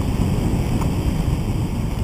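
Wind buffeting the microphone and tyre rumble as a recumbent trike coasts fast downhill on a paved path: a steady low rumble.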